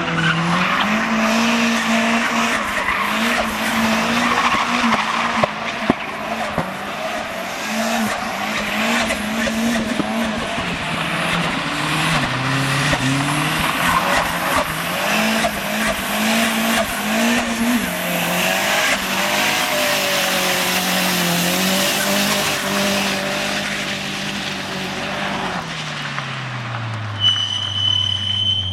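A car doing a burnout and drifting in circles: the engine is held at high revs with repeated brief dips while the tyres screech continuously. Near the end the revs fall away and the screech fades.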